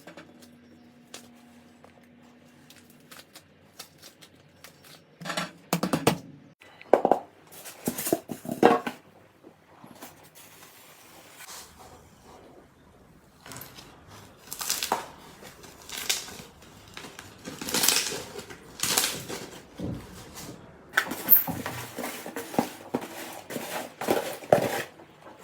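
Slime being squeezed and pressed by hand, giving crackling, popping and squishing sounds in three bunches of quick clicks, with quieter handling in between.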